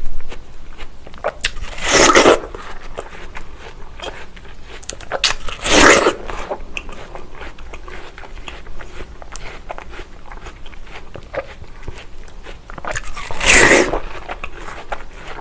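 Eating fresh watermelon: three loud, juicy bites a few seconds apart, with wet, crunchy chewing between them.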